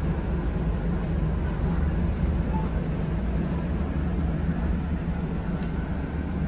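Steady low hum inside a standing air-conditioned train coach, from its air conditioning running strong through the ceiling vents.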